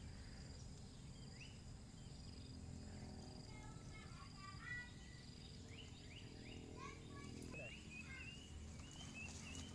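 Faint outdoor ambience: a steady high insect drone with scattered short bird chirps, including a quick trill about four seconds in.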